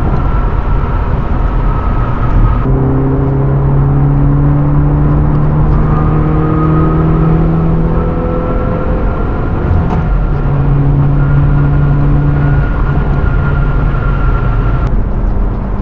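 Hyundai Veloster N's turbocharged 2.0-litre four-cylinder engine droning steadily at highway cruise, heard from inside the cabin over road and tyre noise. The engine note changes abruptly about three seconds in and again near the end.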